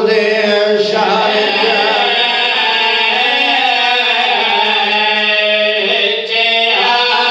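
A man's voice chanting a mournful Shia lament in long, held, wavering notes with echo, with a short break for breath about six seconds in.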